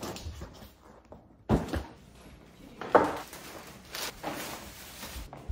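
About four separate knocks and thumps, a second or so apart, of things being handled and set down, with shopping bags and items put on a kitchen counter.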